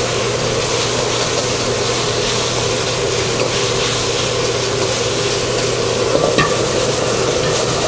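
Minced pork in sauce sizzling as it is stir-fried in a wok, a steady frying hiss as the moisture cooks off, with the utensil stirring and a few light scrapes or knocks around six seconds in.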